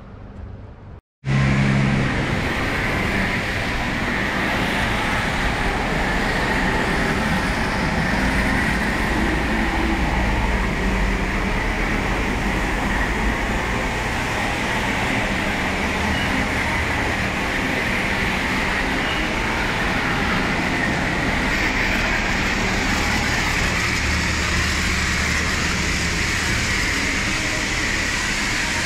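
High-pressure spray wand at a self-serve car wash spraying a car: a steady hiss over a low drone, starting abruptly about a second in.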